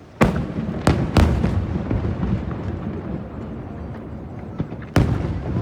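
Aerial firework shells bursting: three sharp booms in the first second and a half, then a long low rumble, and another boom near the end.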